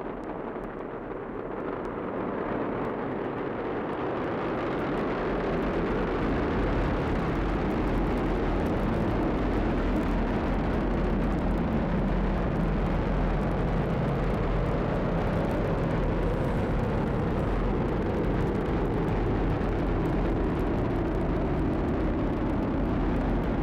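Falcon 9 first stage's nine Merlin 1D engines firing in ascent: a dense, steady rocket roar with a deep rumble, growing louder over the first few seconds and then holding even.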